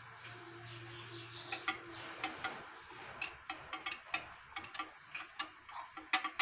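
Wire hand whisk beating a thin milk and yogurt mixture in a glass bowl, the wires tapping the glass in quick irregular clicks, several a second, from about a second and a half in.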